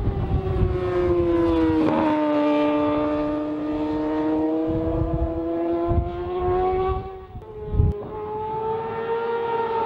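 2008 Yamaha R6 inline-four on a Leo Vince full exhaust (stainless steel headers, titanium slip-on), running at high revs through a corner. The engine note drops in pitch about two seconds in and then climbs slowly. Near the end it breaks off briefly with a thump and comes back at a higher pitch.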